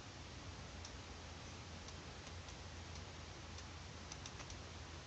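Faint, scattered clicks of a stylus tapping on a pen tablet while handwriting, over a steady low hum and hiss.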